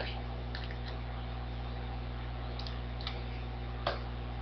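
A few scattered computer mouse clicks, the loudest near the end, over a steady low electrical hum.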